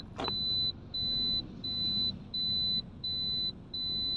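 Electronic car warning beeper sounding a high, steady tone in a regular on-off pattern, about six beeps of half a second each, roughly one and a half a second, over the low rumble of the car.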